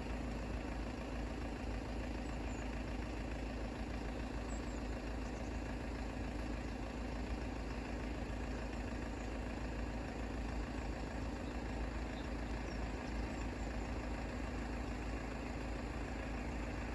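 Steady engine hum, like a vehicle idling, over a constant low rumble.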